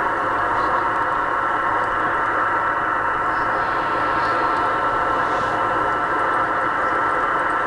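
Steady static hiss with a faint constant whine on the launch-net audio feed, with no call-outs.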